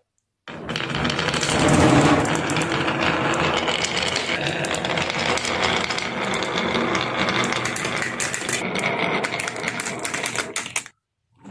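Marbles rolling and clattering down a wooden marble run track, a dense stream of rapid clicks over a rolling rumble. It starts about half a second in and cuts off abruptly near the end.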